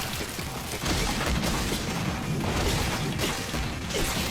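Anime fight-scene soundtrack: repeated crashes and impacts over background music.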